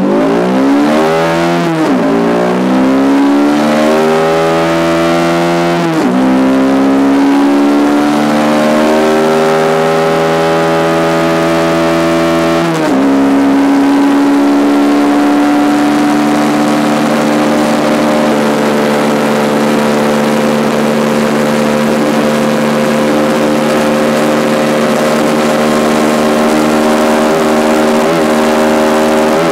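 Bajaj Pulsar NS125's single-cylinder engine at full-throttle acceleration through the gears. The revs climb, then drop sharply at three upshifts, about two, six and thirteen seconds in. After that the engine holds high and nearly steady near its top speed of about 110 km/h.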